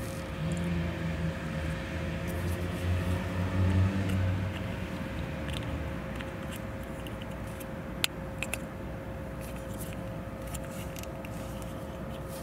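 Small plastic clicks and handling noise from a trunk cargo light's plastic socket and cover as a 194 LED bulb is fitted into it, with one sharp click about eight seconds in and a few lighter ones after. Under it runs a low rumble that fades after about four seconds, and a faint steady tone.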